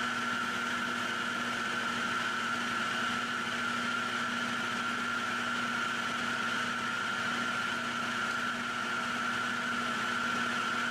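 A machine running steadily: an even hum with a constant high whine that does not change.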